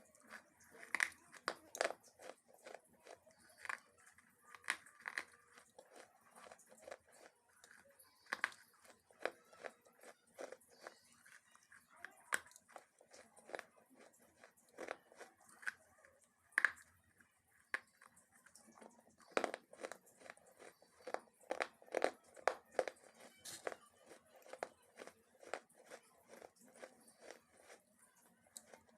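Crunchy food being bitten and chewed close to the microphone: a steady run of irregular sharp crunches and crackles, thicker in some stretches than others.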